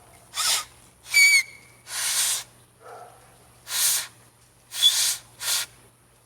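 A person blowing short breathy puffs of air through the lips, about six of them, one breaking into a brief whistle about a second in.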